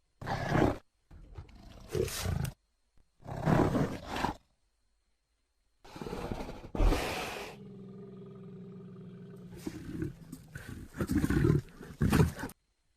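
Designed creature vocalisations for the dinosaur Pachyrhinosaurus: a string of short, rough roars and grunts with silent gaps between them. Near the middle, one long, low, steady call is held for a couple of seconds.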